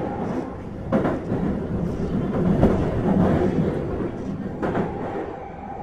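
Kyoto Municipal Subway 20 series train running between stations, heard inside the car: a steady rumble of wheels and motors with a couple of sharp knocks as the wheels cross rail joints, one about a second in and one near the end.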